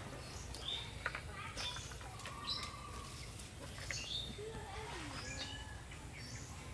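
Small birds chirping in short, repeated calls, over a low steady hum and a few faint clicks.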